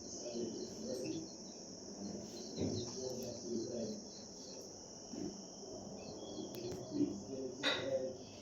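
Steady high-pitched chorus of insects, with a brief knock near the end.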